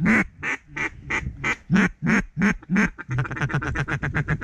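Mallard-style duck call blown in a steady run of evenly spaced quacks, about three a second. About three seconds in it switches to a fast, even chatter like a feed call.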